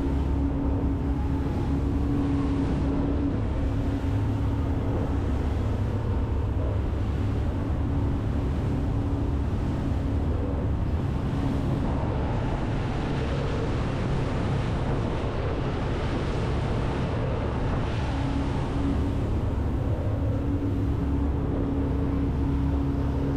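Freeman 34 catamaran running at speed: the steady drone of its outboard engines under the rush of water and spray along the hull, with some wind on the microphone.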